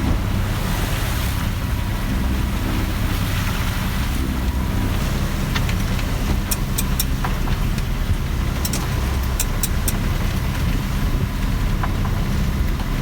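Sailboat's engine running steadily under way into head seas, with wind rushing over the microphone and water noise around the hull. A few sharp clicks come through in the middle.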